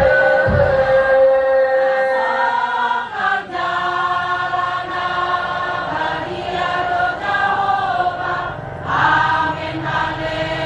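Singing in long held notes that change pitch step by step, with brief breaks about three seconds in and again near the end.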